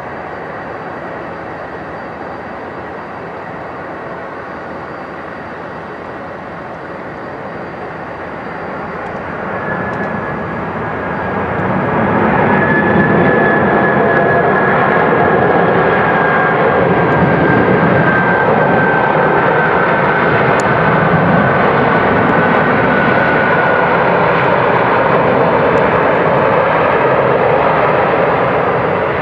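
Boeing 747 freighter's four jet engines during landing and rollout: a steady rushing roar that swells to full loudness about ten seconds in, the sound of reverse thrust after touchdown. A faint high whine slowly falls in pitch through the middle.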